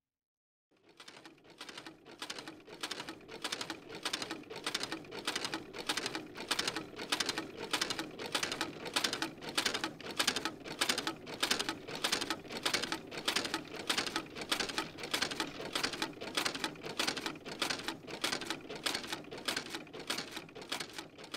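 Arame seaweed cutting machine chopping the harvested seaweed into fine shreds, a steady rhythmic mechanical clatter of about two to three strokes a second that starts under a second in.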